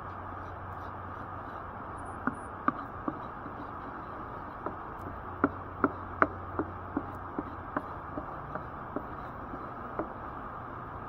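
Wooden spatula knocking and scraping against a granite-coated frying pan while eggs are stirred: a string of sharp little knocks, thickest in the middle, over a steady hiss and low hum.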